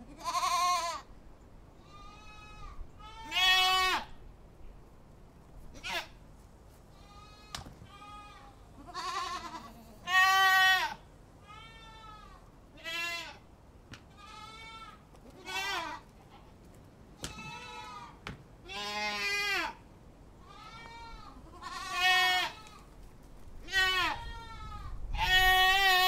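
Goats bleating over and over: short wavering calls every second or two, some higher and some lower, loud and soft by turns.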